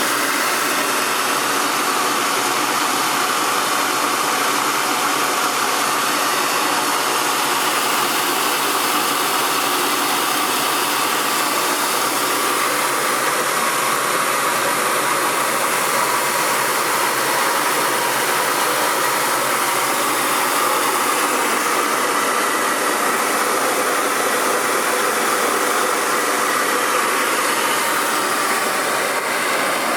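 Rice milling machine running steadily: an even, unchanging machine noise.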